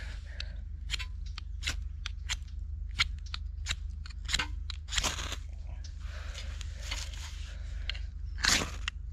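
A knife spine scraped down a ferrocerium rod to throw sparks onto wood-shaving tinder: a run of short, sharp scrapes and clicks, with a few longer scraping strokes around the middle and near the end.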